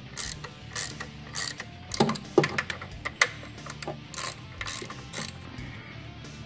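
Ratcheting wrench clicking in short, irregular strokes, about two a second, as the bolts of an oil cooler adapter on an LS3 V8 are run down tight, with a couple of heavier knocks of metal about two seconds in.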